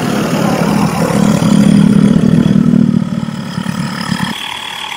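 Handheld electric tyre inflator running, its small pump motor humming steadily as it pumps up a flat scooter tyre. The sound thins out about four seconds in.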